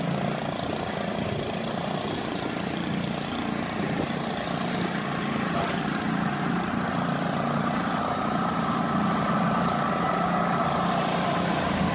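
Small gasoline engine of a walk-behind lawn mower running steadily at an even pitch, getting a little louder in the second half.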